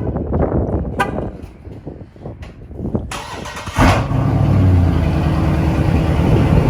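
Dodge Charger Scat Pack's 392 HEMI V8 starting up about four seconds in with a short loud burst, then settling into a steady idle. A few sharp clicks or knocks come before it.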